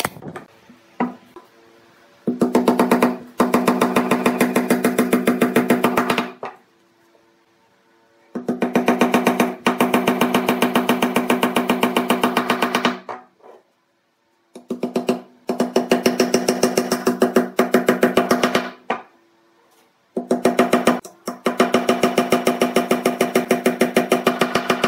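Hammer driving nails into a pine frame with rapid, light, evenly spaced taps, in four long runs of many strikes each, separated by short pauses.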